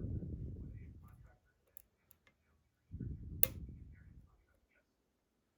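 Lock picking in a pin-tumbler euro cylinder: faint small ticks and one sharp click of the pick working the pins about three and a half seconds in, between two low, fading rumbles of the lock being handled near the microphone.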